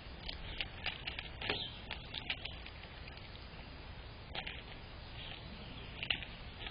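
Birds at a bird cam: a scatter of short, high chirps and light ticks, most of them in the first two and a half seconds and a few more later, over a steady low background rumble.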